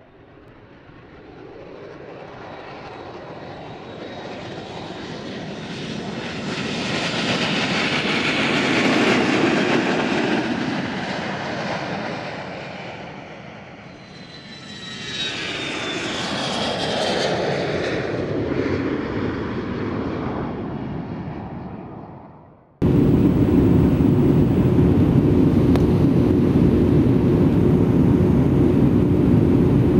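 An airplane's engines swelling up and passing, with a falling whine, then fading away. About two-thirds of the way in, the sound cuts abruptly to a loud, steady aircraft engine drone with a constant hum.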